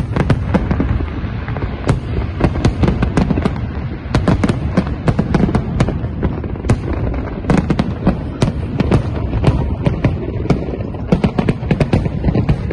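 Large aerial fireworks display: many shells bursting in quick, overlapping succession, sharp bangs and crackles over a continuous low booming.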